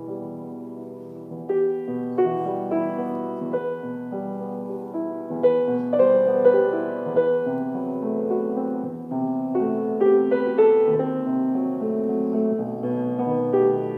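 Piano playing chords and a melody, with new notes struck every half second or so. It grows louder about a second and a half in.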